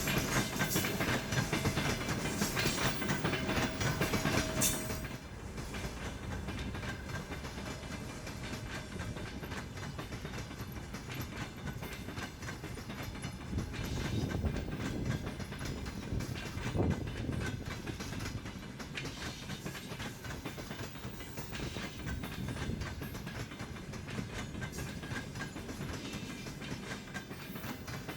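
Railway carriages rolling past, their wheels clattering rhythmically over the rail joints. It is louder for the first five seconds, with a steady high ringing tone over that stretch, then settles into a steadier, slightly quieter clatter.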